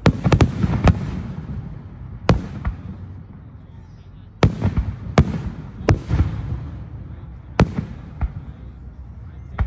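Aerial firework shells bursting one after another, each a sharp boom that trails off in a rolling echo: a quick cluster of bursts in the first second, then single booms every second or so.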